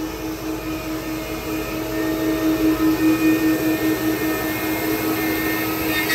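4-axis CNC wood router's tilted spindle running with a steady whine while a small carving bit cuts into a wooden block. A rough cutting noise over it grows louder and uneven about two seconds in.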